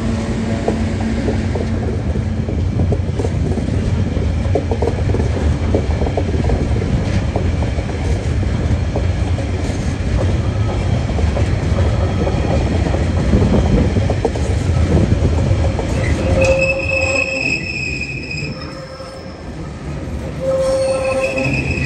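Long freight train of container wagons rolling past: a steady low rumble with rail clatter, with a diesel locomotive's engine hum in the first couple of seconds as the last locomotive goes by. About sixteen seconds in, and again near the end, wheels squeal in high held tones while the rumble eases.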